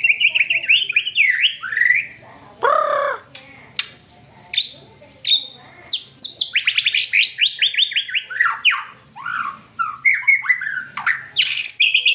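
White-rumped shama singing in loud, varied phrases: fast trills of rapidly repeated notes and quick downward-sweeping whistles, with a harsher, lower call about three seconds in and short pauses between phrases.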